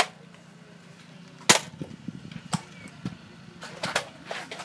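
Several sharp knocks or clicks at irregular intervals, the loudest about one and a half seconds in, over a low steady hum.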